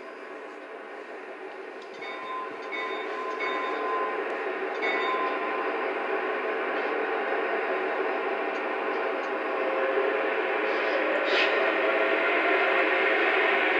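O-scale model AC6000 diesel locomotives' sound system playing diesel engine rumble, with wheels rolling on the track, growing steadily louder as the lashup approaches. A few horn blasts sound in the first five seconds.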